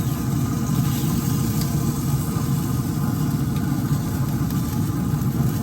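A motor running steadily, a low, even drone with a faint hum above it.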